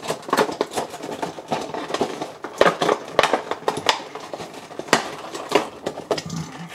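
Clear plastic blister tray from an action-figure box crackling and clicking as it is handled and lifted out, in irregular sharp clicks and crinkles.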